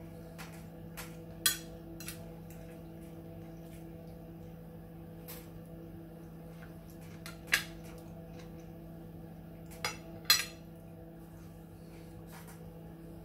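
Metal fork clinking and scraping against a plate a few separate times, the sharpest clinks about a second and a half in, at about seven and a half seconds, and twice near ten seconds. A steady low hum runs underneath.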